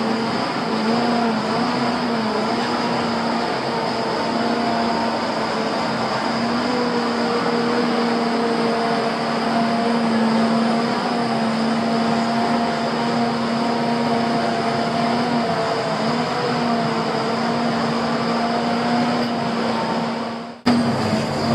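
Volvo FH16 log truck's 16-litre engine running steadily to drive the hydraulics of its loading crane as the grapple lifts logs. It gives a continuous mechanical hum whose pitch wavers and shifts slightly as the crane works. The sound drops out for an instant near the end.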